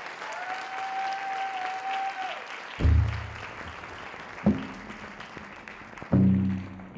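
Audience applause, with a single high tone held for about two seconds over it; about three, four and a half and six seconds in, three deep low musical notes sound as the clapping goes on.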